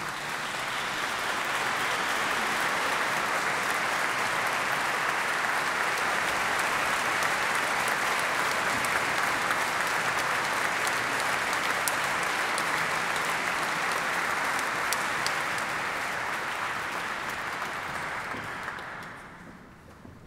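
Audience applauding, swelling over the first couple of seconds, holding steady, then fading away near the end.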